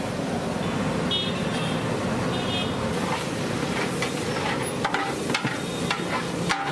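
Steady roar of street traffic, with two short high-pitched toots, one about a second in and one about two and a half seconds in, and a few sharp clicks in the second half.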